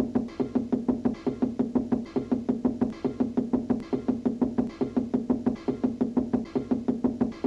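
Cartoon knocking on a wall: rapid, even knocks at about five a second, each with a low pitched, musical tone like a tuned percussion sound effect.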